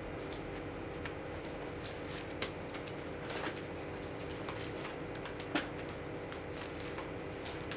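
Steady low hum of room tone with scattered soft clicks and rustles, as of Bible pages being turned to look up a passage.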